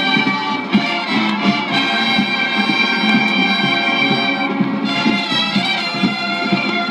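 High school marching band recording: brass holding full chords over steady drum strokes, moving to a new chord about five seconds in.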